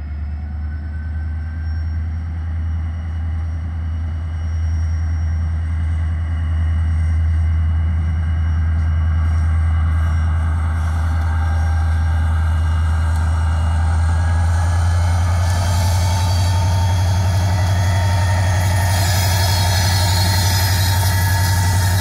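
NYSW diesel-electric locomotive hauling a freight train of covered hoppers, its engine humming steadily low and growing louder as it approaches and comes alongside. A rising hiss joins in over the last third.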